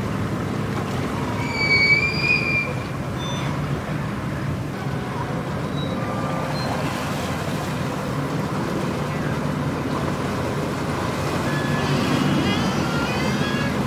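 Steady low machinery hum, with a brief high-pitched squeal about two seconds in.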